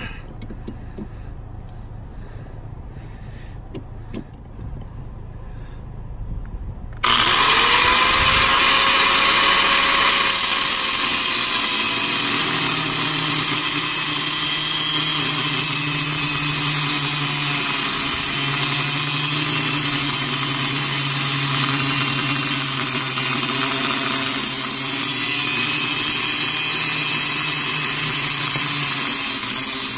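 Angle grinder switched on about seven seconds in, its motor whine rising as it spins up, then a cut-off disc grinding through the steel pedal with a steady, loud hiss of metal cutting for the rest of the time.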